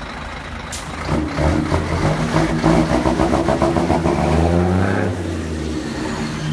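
Scania 124G 360 truck's inline-six turbo diesel pulling away, its note climbing in pitch as it accelerates, then falling back lower about five seconds in.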